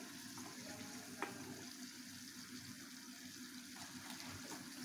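Faint, steady sizzle of oil shallow-frying stuffed pastry pockets in a non-stick pan, with a light tap of a metal spatula about a second in.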